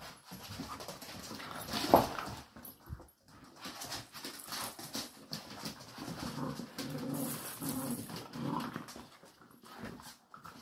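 Several puppies playing and tussling over toys, making small whining and panting noises. A sudden louder sound comes about two seconds in.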